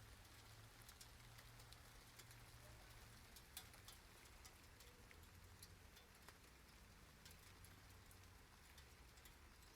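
Near silence: faint background noise with scattered small ticks and a faint low hum that comes and goes.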